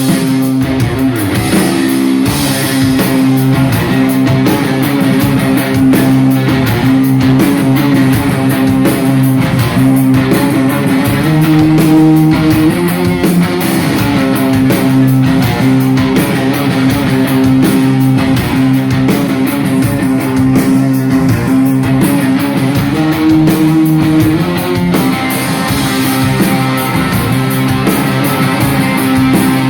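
Rock band playing live: electric guitar and bass holding long chords that shift every few seconds over a steady beat, with no singing.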